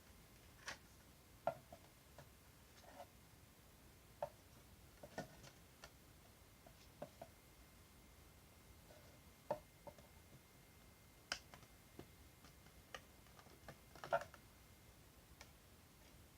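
Faint, scattered light clicks and taps from objects being handled during an unboxing, about a dozen at irregular intervals; the loudest comes about fourteen seconds in.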